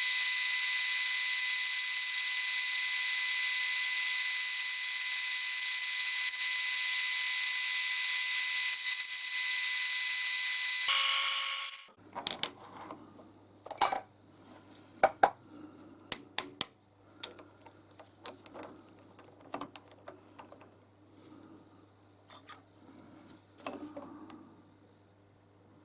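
A power tool runs steadily with a loud hiss and a fixed whine, then stops abruptly about eleven seconds in. Scattered light metallic clinks follow, as small brass castings are handled and set down.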